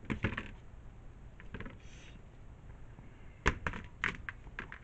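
Hollow plastic cabinet panels being handled, giving light clacks and taps: a few clicks near the start, the sharpest knock about three and a half seconds in, then a quick run of smaller taps.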